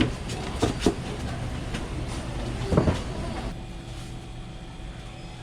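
A few sharp knocks and clatters of cookware, the loudest near three seconds in, over a steady low background noise whose hiss drops away about three and a half seconds in.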